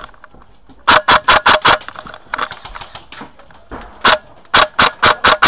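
Airsoft rifle firing close to the microphone in quick strings of sharp cracks. There are about five rapid shots a second in, a single shot around four seconds, and another string of about five near the end, about five shots a second.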